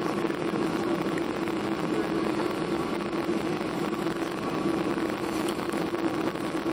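Steady cabin drone of a Boeing 737-800 in flight: its CFM56-7B engines and the airflow make an even rushing noise with a steady low hum running through it.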